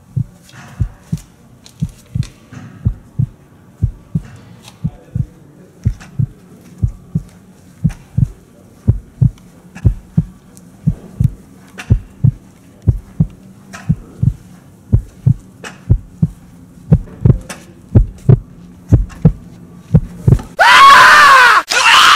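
Heartbeat sound effect: a steady run of low, evenly spaced thumps over a faint hum. About twenty seconds in, a loud scream rises for about a second and a half and cuts off suddenly.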